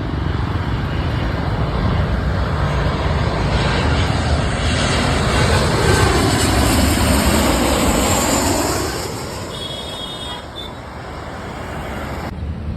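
Jet airliner on landing approach passing low overhead: a rushing engine noise that builds, peaks about six to eight seconds in with a sweeping rise and fall in tone, and fades away by about nine seconds.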